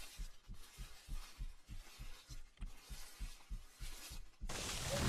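Faint, low, rapid thumping from a horror video's sound effects, about five thumps a second, like a racing heartbeat. A loud hiss cuts in suddenly near the end.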